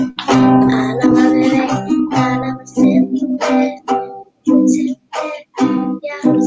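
Small nylon-string classical guitar strummed in repeated chords. The sound cuts out twice for a moment about two-thirds of the way through.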